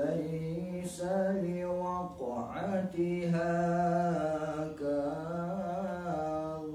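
A man chanting Quranic recitation in Arabic in a melodic, drawn-out style, holding long notes with a quick breath about two seconds in and again near five seconds.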